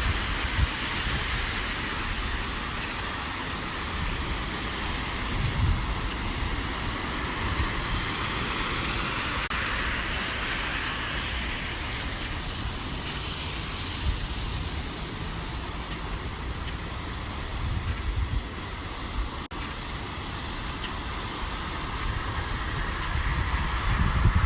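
Steady rushing noise of a severe storm's flooding, heavy rain and running water, with irregular low gusts of wind buffeting the microphone.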